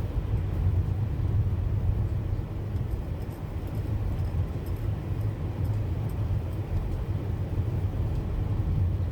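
Steady low rumble of a car driving on a snowy road, engine and tyre noise heard from inside the cabin.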